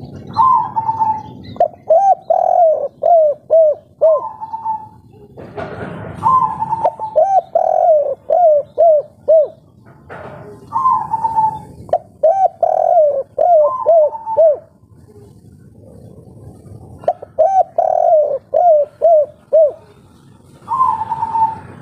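Spotted dove (derkuku/tekukur) singing its 'kuk 3' cooing song. Each phrase is a higher falling coo followed by a quick run of shorter, lower coos. The phrase repeats about four times with short pauses, and another begins near the end.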